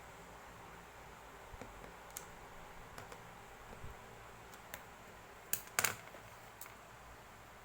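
Irregular light clicks and taps, with a louder cluster of two or three clicks about five and a half to six seconds in, over a steady hiss.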